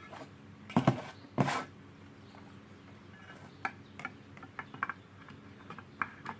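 Small metal parts being handled on an amplifier's heatsink and chassis: two louder knocks about a second in, then a run of small clicks and taps, over a faint steady hum.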